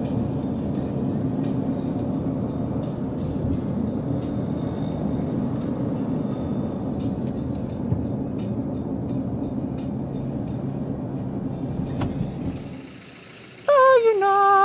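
Steady road and engine rumble inside a moving car's cabin. It cuts off suddenly near the end, and a woman's voice begins singing held notes.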